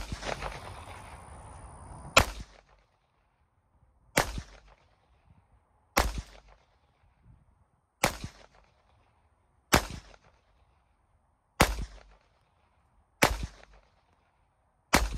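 Glock 30 pistol firing .45 ACP rounds one at a time: nine sharp shots roughly two seconds apart, each with a short echo.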